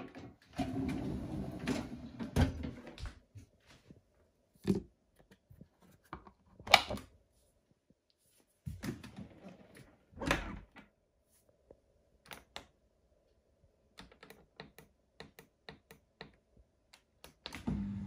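Pots, pans and plates clattering in a loaded dishwasher rack as it is pushed in, then several knocks and a thunk about ten seconds in as the dishwasher door is shut. Light clicks follow from the control buttons, and near the end the dishwasher starts up with a steady low hum.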